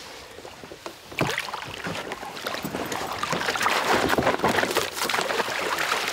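Water splashing and sloshing as a large pike thrashes at the surface and is scooped into a landing net. It starts about a second in and grows louder.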